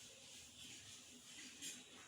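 Near silence: faint room tone, with one soft click near the end.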